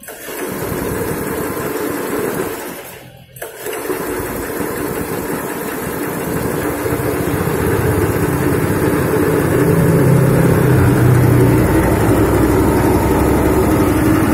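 Small single-cylinder Tesla 5.5 HP petrol engine running just after a pull start. It drops out briefly twice near the start, then runs steadily and grows louder from about seven seconds in.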